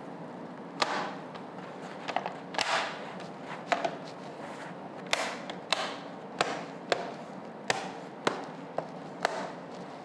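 Plastic base cover of an Acer Extensa laptop being pressed onto the chassis, its snap clips clicking into place one after another: a series of sharp clicks, about one or two a second, over a faint steady hiss.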